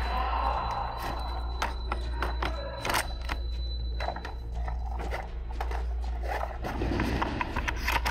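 Indoor paintball play: irregular sharp pops and knocks over a steady low hum of background noise from a neighbouring laser tag game. A thin high steady tone runs through the first half and stops about four seconds in.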